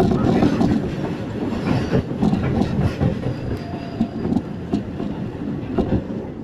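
Running rumble of a moving JR 205-series electric commuter train heard from inside the car, with irregular clacks of wheels over rail joints, as two long-distance trains pass close by on the adjacent track. The noise eases off gradually toward the end.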